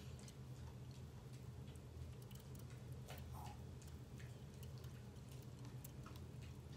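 Quiet room tone: a steady low hum from a running ceiling fan, with faint, irregular clicks scattered through it.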